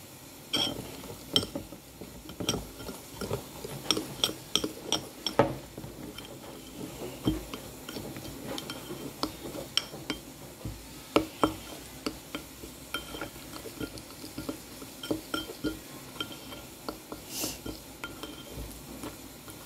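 Metal spoon stirring a thick cornstarch paste in a glass bowl, clinking and scraping against the glass over and over at an uneven pace, each clink ringing briefly.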